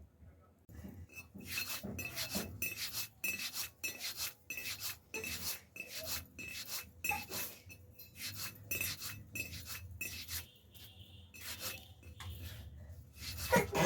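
Hands rubbing strips of rice-flour dough between the palms to roll off small chushi pitha pieces: quick, repeated rubbing strokes, about two to three a second.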